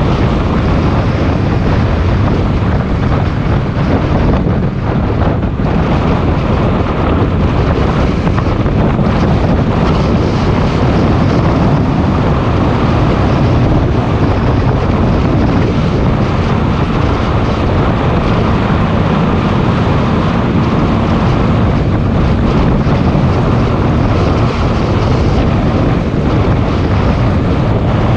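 Motorcycle being ridden at a steady pace: steady wind rush on the microphone over the engine's even drone.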